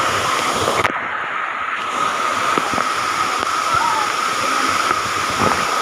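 Water from a small spring-fed waterfall pouring steadily over rocks and splashing into a shallow pool.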